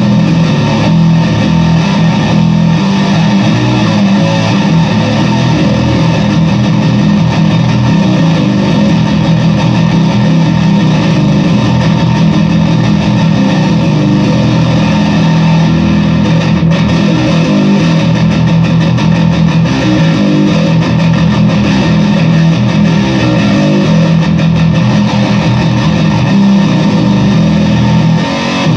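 Fender Squier Bass VI six-string bass played continuously through an Electro-Harmonix Big Muff fuzz pedal: a thick, sustained fuzz-distorted tone, heaviest in the low range.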